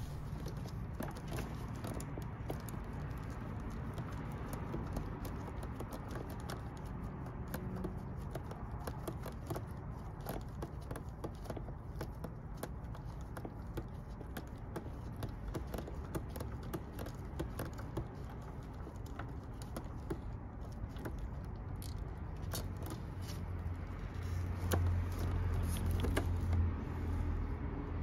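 Gloved hands working the idle air control valve loose from under the throttle body in an engine bay: many small scattered clicks, taps and rustles of plastic and metal parts. A low rumble grows louder near the end.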